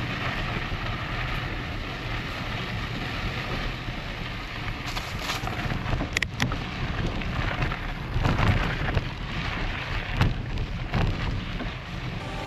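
Knobby enduro mountain-bike tyres rolling and crunching over a dry dirt and gravel trail, with the bike rattling over bumps. A few sharp knocks stand out, the clearest about six and ten seconds in.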